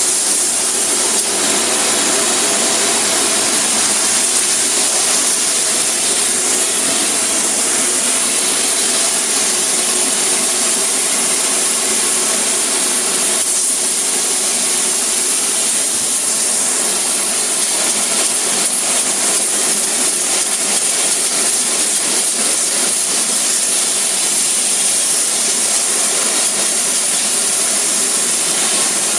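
Spray-foam insulation gun spraying: a loud, steady hiss with no breaks, and a faint steady hum underneath.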